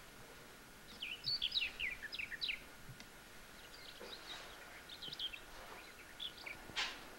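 Small birds chirping and twittering faintly in quick clusters of short, downward-sweeping chirps that come and go in three spells, with a brief hiss near the end.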